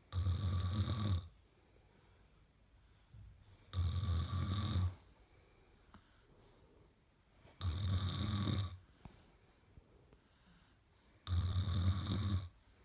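A young woman snoring: four loud snores about every four seconds, each lasting a little over a second, with quiet in between.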